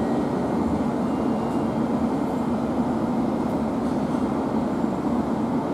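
JR Kyushu 783 series electric train pulling out of the station and drawing away, a steady running noise of wheels on rail with most of its weight low down.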